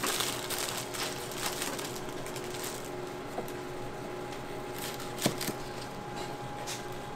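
Restaurant kitchen ambience: a steady hum from kitchen equipment, with scattered clicks and knocks of utensils and cookware and one sharper knock about five seconds in.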